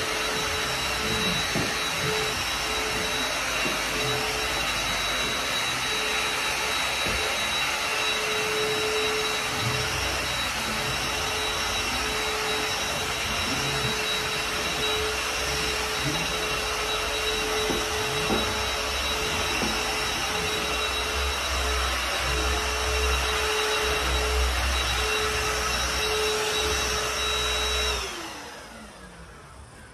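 Stick vacuum cleaner running steadily on carpet, with a steady high whine. Near the end it is switched off, and the motor's pitch falls as it winds down.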